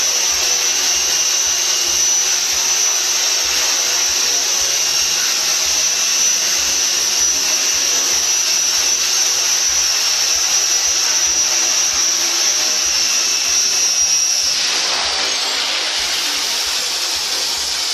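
Radio-controlled model helicopter running, a steady high motor whine over the hiss of the spinning rotor blades. Near the end the whine falls away and a broader, higher rushing sound takes over.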